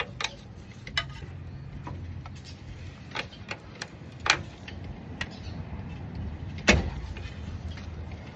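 A wrench clinking on the 15 mm shift-linkage bolt of a TH350 automatic transmission as it is worked loose: scattered metallic clicks and knocks, the loudest about two-thirds of the way through, over a steady low hum.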